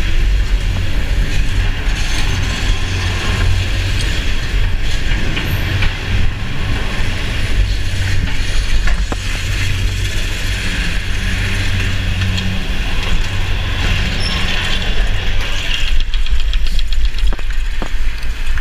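Six-seat chairlift running with riders aboard, leaving the loading station and climbing the slope: a steady mechanical rumble with scattered clicks, and a quick run of clicks near the end.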